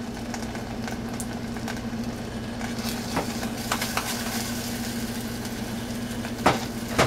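Steady low hum and hiss from a pot of mashed potatoes cooking on a stovetop, broken by a few light clinks of a metal spoon against the pot, the two loudest near the end.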